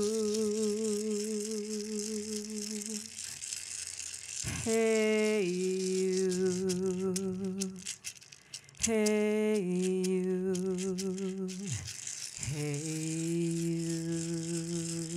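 A woman singing a slow chant in long held notes with vibrato, each phrase starting with a quick upward slide, over a steadily shaken rattle. The singing breaks off briefly about eight seconds in.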